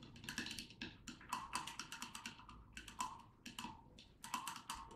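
Thin wooden stirring stick knocking and clinking against the inside of a glass wine goblet while stirring liquid: rapid, irregular light ticks and taps, several a second.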